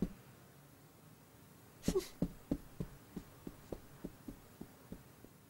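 Soft cartoon footsteps of a cat walking away: a run of about a dozen quick light pats, about three a second, starting about two seconds in with a louder first step and growing fainter.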